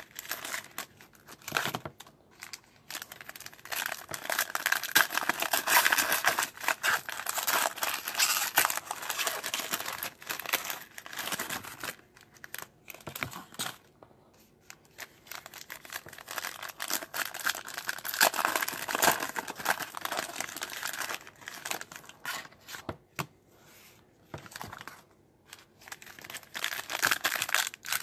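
Foil trading-card pack wrappers being torn open and crinkled by hand, the crackling coming in stretches separated by short pauses.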